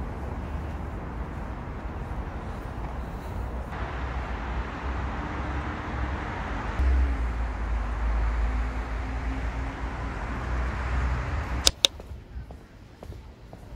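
Wind buffeting a phone's microphone outdoors, a low rumble over a steady rush of noise. It cuts off suddenly with two sharp clicks near the end, leaving faint footsteps on pavement.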